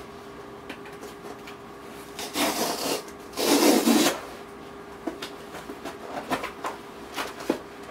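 Packing tape being ripped off a cardboard mailing box: two long rasping rips, about two and a half and three and a half seconds in, with small rustles and taps of the cardboard around them.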